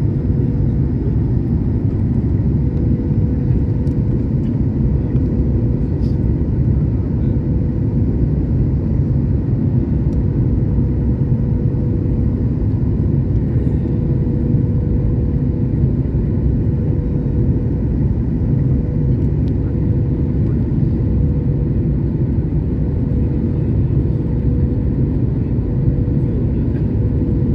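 Passenger aircraft in its landing, heard as a steady, loud low rumble with a steady hum over it, typical of cabin noise on an airliner.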